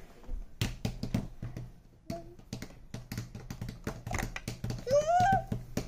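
Hard plastic toy pieces being handled, with a quick irregular run of clicks and taps. A short rising-then-falling voice sound comes about five seconds in.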